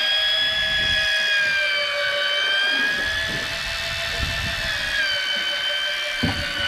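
Electric deep-drop fishing reel winding in a hooked fish, a steady high motor whine whose pitch sags slightly a couple of times under the load. Low uneven rumbling and a short knock near the end sit beneath it.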